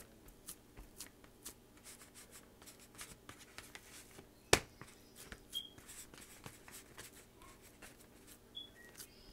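Hands patting and pressing raw ground beef into a hamburger patty on a paper plate: faint soft pats and rubbing against the plate, with one sharp click about four and a half seconds in.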